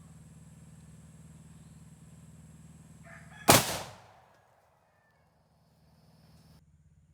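A single heavy rifle report about halfway through: two 1886 Winchester lever-action rifles in .50-110 WCF fired at the same moment, so the shots merge into one blast that dies away within about half a second.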